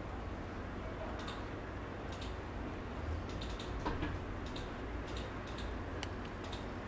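Faint, irregular light clicks and soft rubbing as cotton-gloved hands handle and turn a plastic-cased chronograph wristwatch, over a steady low hum. The clicks come thicker in the second half.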